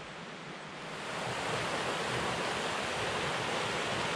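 Steady rushing of a small rocky creek, coming in louder about a second in after a fainter even hiss.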